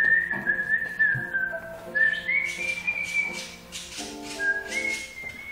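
A whistled tune in long held notes that step up and down in pitch, over background music.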